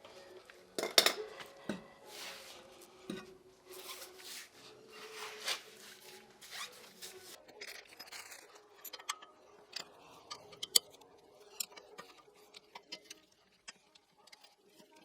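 Metal hand tools clicking and clinking against the brake caliper and hub of a van's front wheel: scattered sharp clicks and clinks, the loudest about a second in and again near eleven seconds.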